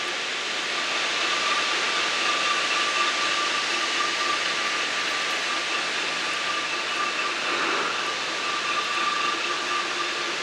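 Steady machinery noise: an even rushing sound with a constant high-pitched whine running through it.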